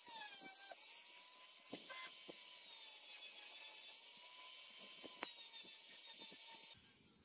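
Small high-speed rotary tool with a polishing wheel running against a sunglass lens: a steady high whine whose pitch sags briefly at the start, with a few light ticks as the wheel touches the lens. It cuts off abruptly shortly before the end.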